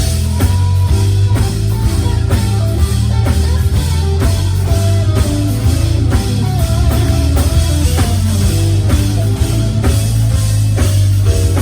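Live gospel band playing an instrumental passage: drum kit keeping a steady beat over strong bass, with held melodic notes above.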